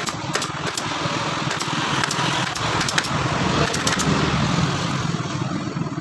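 Pneumatic upholstery staple gun firing staples into a wooden sofa seat frame to fix the leather seat border: about a dozen sharp clacks at an uneven pace, fewer near the end. A steady low rumble runs underneath.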